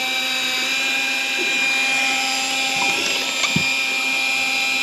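Daiwa Tanacom 750 electric fishing reel's motor whining steadily as it winds in line with a fish on, with a soft knock about three and a half seconds in.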